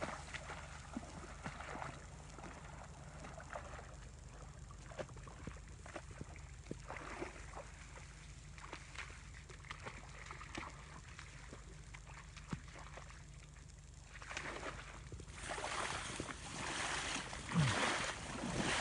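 Quiet rustling and light splashing of movement through tall wet marsh grass and shallow water, with scattered small clicks. It grows louder and fuller in the last few seconds as the grass is pushed through.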